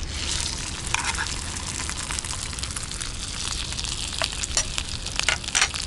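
Salmon fillets sizzling in hot melted butter in a cast iron skillet: a steady hiss, starting as the fish goes in, with scattered crackles and spatter pops.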